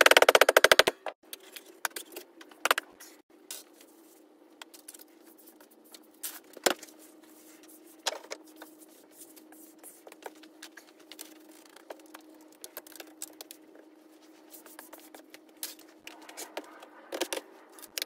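Rapid tamping of Petrobond moulding sand into a steel flask for about the first second. Then scattered clicks, knocks and scrapes of the steel flask and hand tools being handled on a metal workbench, over a faint steady hum.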